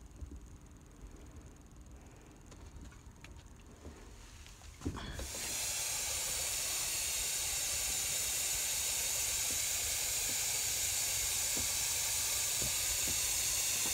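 Aerosol can of silicone spray hissing steadily as it is sprayed onto wood. The hiss starts about five seconds in, after a quiet stretch.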